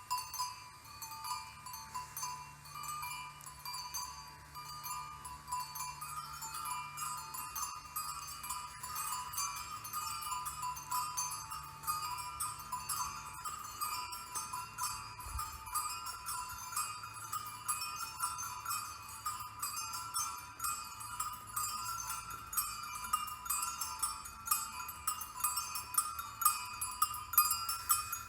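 Dense metallic tinkling: many quick bell-like strikes over steady ringing tones, growing louder near the end.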